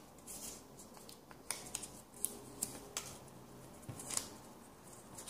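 A small slip of paper being folded and creased by hand: faint, scattered crinkles and ticks.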